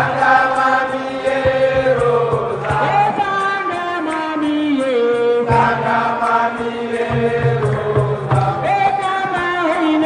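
Intro music of chant-like singing: voices holding long notes that slide slowly from pitch to pitch over a low pulse.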